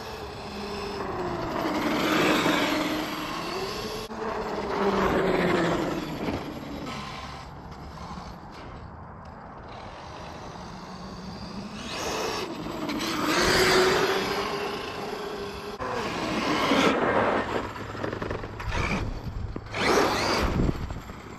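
Brushless electric motor and drivetrain of a 1/5-scale Arrma Outcast EXB RC truck whining up and down in pitch as it speeds up and slows in repeated runs. Its tyres throw up snow in swelling bursts of rushing noise.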